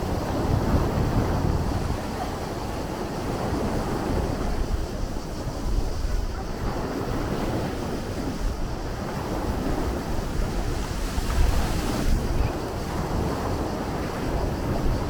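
Sea waves washing on the shore, a continuous rushing surf that swells and eases, with wind buffeting the microphone in low rumbles.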